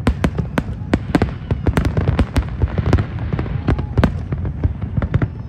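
Fireworks display: a rapid, irregular barrage of bangs from shells bursting and rockets launching, several a second, over a continuous low rumble.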